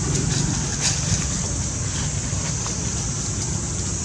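Steady outdoor ambience: wind rumbling on the microphone under a constant high-pitched hiss, with a few faint rustles about a second in.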